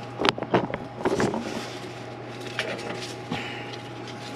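Light metallic clicks and clinks from hands working a brake line fitting and its crush washers, several in the first second and a half and a few fainter ones later, over a steady low hum.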